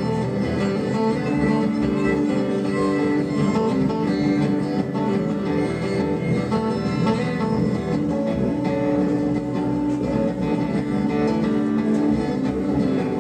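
Acoustic guitar played live in an instrumental stretch of a folk song, with no singing.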